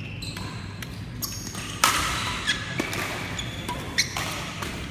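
Badminton doubles rally: several sharp cracks of rackets striking the shuttlecock, the loudest a little under two seconds in, with short squeaks of shoes on the court floor between them.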